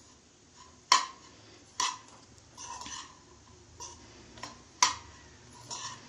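Metal spoon stirring and scraping grated coconut and spice powders as they dry-roast in a stainless steel saucepan, with several sharp clinks of the spoon against the pan, the loudest about a second in and again near five seconds in.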